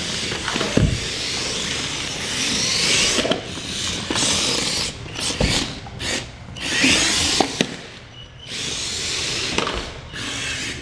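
Air Hogs Hyper Tracks remote-control tracked cars driving on a hardwood floor: their small electric motors whir and their tracks rattle, swelling and easing as they speed up and slow down, with a few sharp knocks as they bump into each other.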